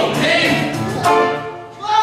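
A stage-musical number: voices singing with instrumental accompaniment.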